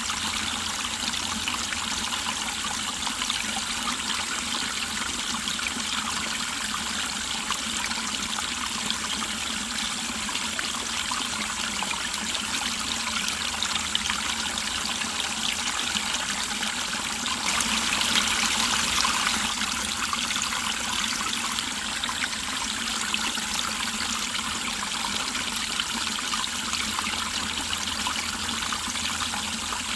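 Mountain valley stream flowing over rocks, a steady trickling and babbling of water that swells a little louder for a couple of seconds past the middle.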